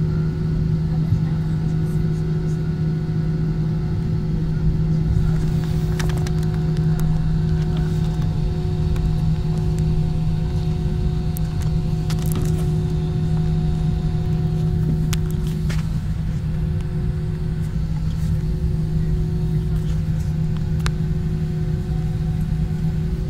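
Jet airliner's engines at steady takeoff thrust, heard inside the cabin: a loud, even rumble with a constant low drone, and a few faint clicks and rattles.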